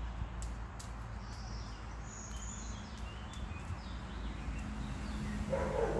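Birds chirping in the background with short high calls and a brief trill, then a Briard barks once near the end.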